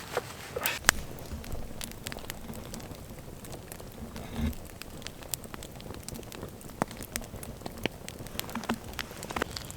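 Wood fire crackling: irregular sharp pops and snaps over a soft hiss.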